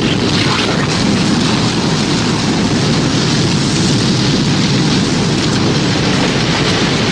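Tornado sound effect: a loud, steady low rumble of wind with a rain-like hiss over it. No siren can be heard.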